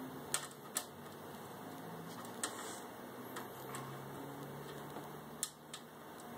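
A handful of sharp, separate clicks and taps: hands and tools working on a desktop PC's metal case while its power supply is being refitted.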